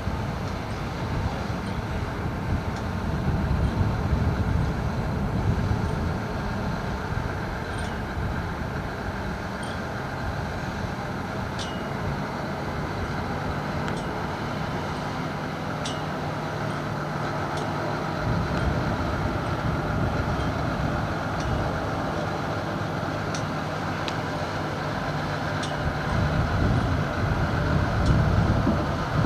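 Engines of paving equipment at work, an asphalt distributor truck and a tractor laying paving fabric, as a steady low drone. A hum holds one pitch through the middle stretch.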